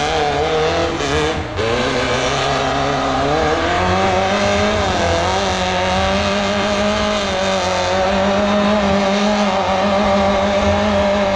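Off-road vehicle's engine held at high revs under load as it climbs a steep dirt hill, with its pitch wavering slightly as the throttle and traction change.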